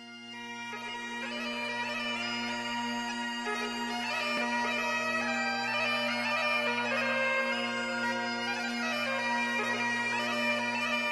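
Bagpipe music: steady drones holding under a chanter melody, swelling in over the first couple of seconds.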